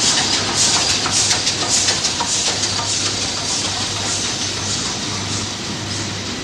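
BR Standard 4MT 2-6-4T No. 80079 and Ivatt 4MT 2-6-0 No. 43106 steam locomotives arriving at a station. Their steam hisses in rhythmic pulses about twice a second, easing off toward the end, with a few faint metallic clicks.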